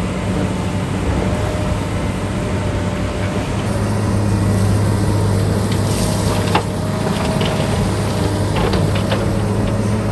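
A heavy construction machine's diesel engine running steadily with a deep hum, with a few sharp metallic knocks about two-thirds of the way through.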